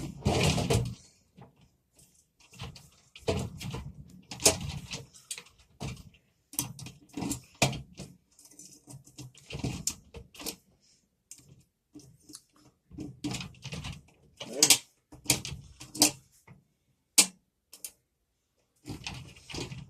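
Tweezers working inside a filing cabinet lock as it is picked: irregular metallic clicks and scrapes, some sharper and louder than others, with gaps between them.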